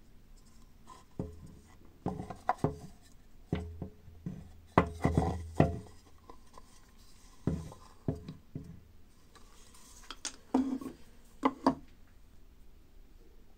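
Two carved wooden kuksa cups being handled and turned over in the hands: irregular light knocks, clacks and rubbing of wood, loudest midway, stopping near the end.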